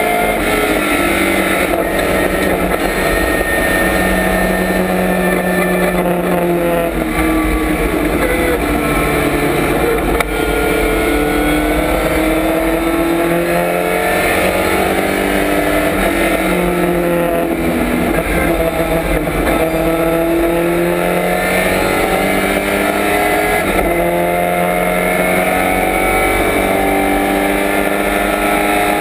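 1965 Lotus Cortina Mk1's twin-cam four-cylinder race engine heard from inside the stripped cabin at racing speed. Its pitch climbs through the revs and drops sharply again and again as the gears change and the car brakes for corners.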